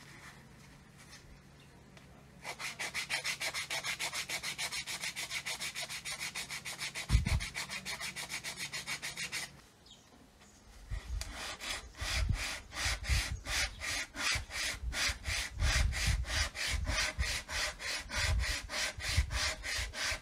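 Hand sanding with rapid back-and-forth strokes, about four a second, which stop briefly about halfway through. They then resume slower and heavier, with low thumps among the strokes.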